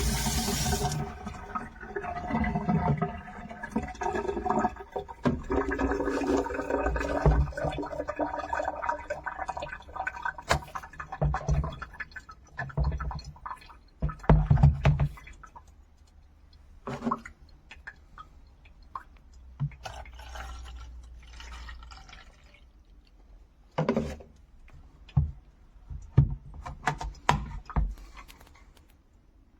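Water running into the CrossWave's plastic dirty-water tank as it is rinsed, with a ringing filling tone. It stops about halfway through, followed by scattered knocks and clicks of plastic parts being handled.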